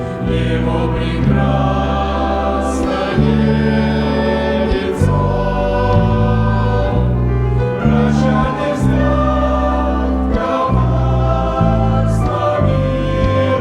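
A choir singing a sacred song, with full chords held about a second each before moving on.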